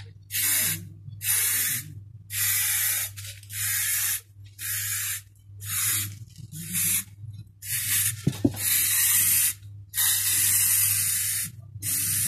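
Aerosol spray can of primer spraying in about ten short hissing bursts, each half a second to a second and a half long, with brief pauses between.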